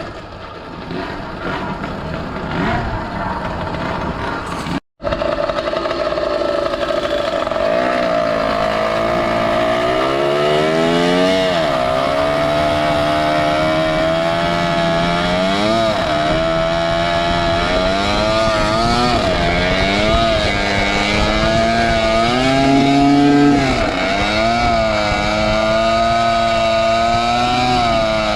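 A motorized bicycle's Zeda 80 two-stroke engine running under way, its pitch repeatedly rising and falling as the throttle is opened and eased. The sound cuts out for an instant about five seconds in.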